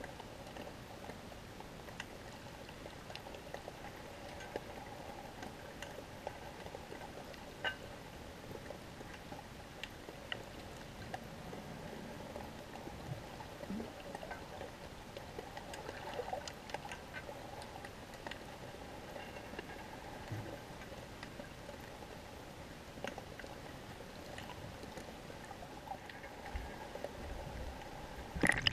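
Underwater ambience recorded by a GoPro Hero 3 in its waterproof housing, hanging below the surface: a faint, muffled, steady hiss and hum with scattered faint clicks and ticks.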